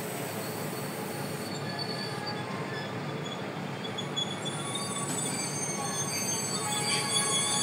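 Freight train wagons rolling past on the rails with a steady rumble. Thin high-pitched wheel squeal sets in after about two seconds and grows stronger near the end.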